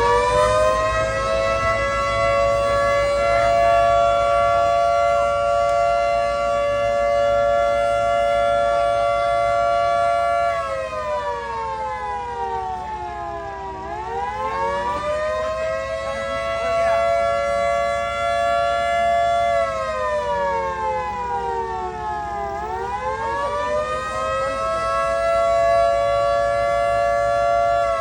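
A mini warning siren sounds two tones at once. It holds a steady pitch, then twice slides down and winds back up before holding again. It starts sliding down a third time near the end.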